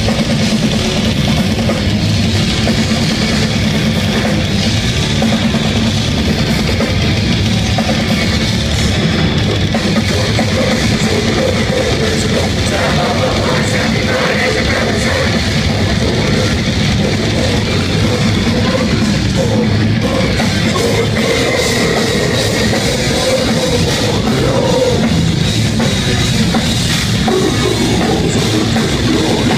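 Death metal band playing live: distorted electric guitars over a full drum kit, loud and unbroken.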